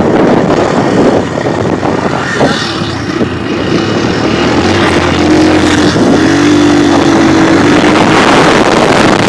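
Motorcycle riding on a dirt track: loud wind buffeting the microphone over the engine running, with a wavering droning note in the middle.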